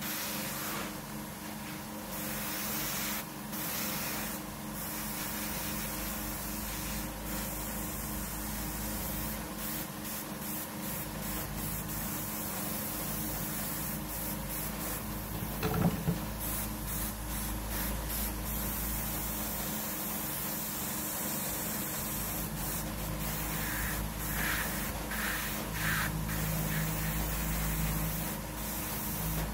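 Airbrush spraying paint with a steady hiss that stops briefly several times as the trigger is let off, over a steady low hum. There is one sharp knock about halfway through.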